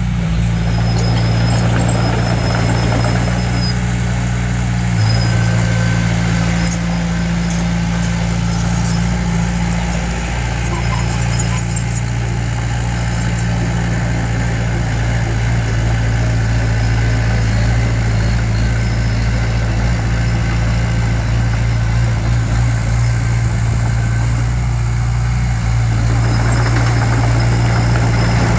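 Heavy construction machine's diesel engine running steadily with a deep, even hum.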